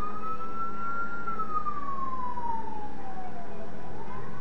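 A siren wailing: one slow rise and fall in pitch, beginning to rise again near the end, over a steady low hum.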